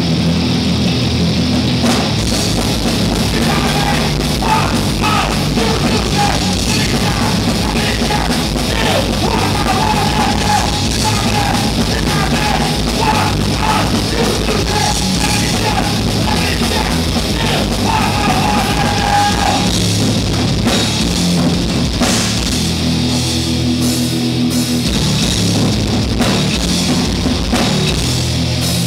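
Rock band playing live through a PA: distorted electric guitars, bass and a drum kit with a singer. The drums and cymbals come in fully about two seconds in.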